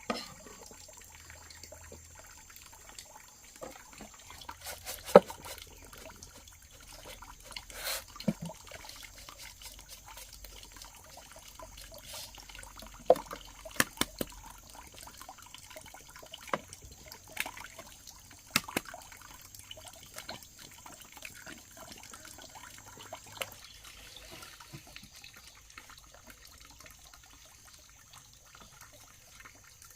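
Water trickling and sloshing, as in hand washing or rinsing in a basin, with scattered sharp knocks and clinks of things being handled. The loudest knock comes about five seconds in, and several more cluster in the middle.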